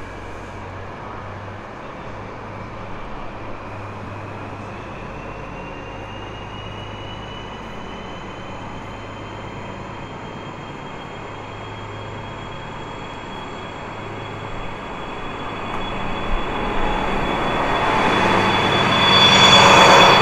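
DB class 218 diesel-hydraulic locomotive pulling away under power, its diesel engine running with a steady low drone and a thin whine that rises slowly in pitch as it picks up speed. It grows much louder over the last few seconds as the locomotive passes close by.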